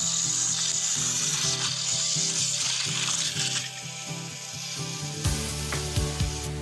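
Battery-powered toy trains running on plastic track, giving a gritty hiss that fades out about three and a half seconds in, over background music.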